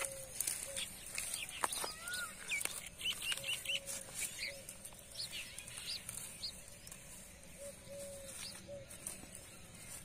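Chickens calling: a run of quick, high peeps and chirps, busiest in the first half and thinning out after about five seconds.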